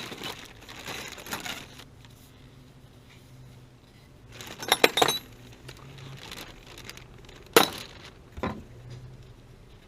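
Hard objects being handled: a rustle, then a quick cluster of sharp clinks about five seconds in, and two single knocks near the end.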